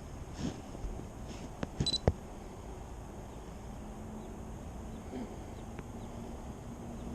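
A few light handling clicks, with a short high electronic beep about two seconds in, over a steady haze of background noise; a faint steady hum sets in about four seconds in.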